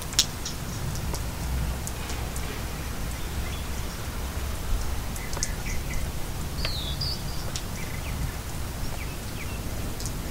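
Steady rain ambience with scattered drip ticks and a sharp tap just after the start. A few short bird chirps come about two-thirds of the way through.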